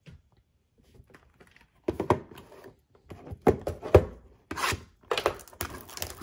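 A shrink-wrapped cardboard trading card box being handled on a desk: starting about two seconds in, a few knocks of the box against the desktop, then fingers rubbing and scraping at its plastic wrap.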